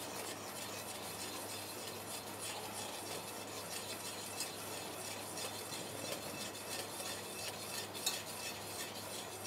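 Wire whisk quietly stirring and scraping thick mango purée in a stainless steel saucepan over a low gas flame, with a few small clicks of the wires against the pan. The purée is being heated gently to evaporate its water without cooking or colouring it.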